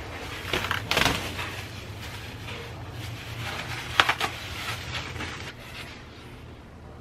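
Clear plastic stretch wrap crinkling and rustling as it is pulled and handled on a large picture frame, in a few short bursts about a second in and around four seconds in, over a steady low hum.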